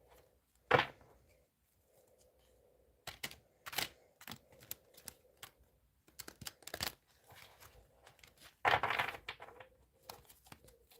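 Handling noise: scattered clicks and taps, with a short rustling burst under a second in and a longer rustle near the end.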